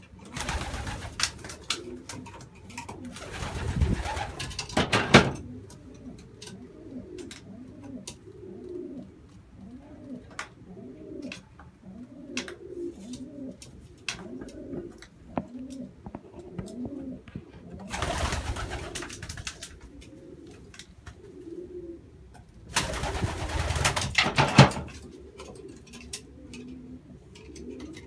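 Racing pigeon hens cooing over and over in a small wooden loft. Three loud rustling bursts break in: one near the start lasting a few seconds, a shorter one about two-thirds of the way through, and the loudest a few seconds later.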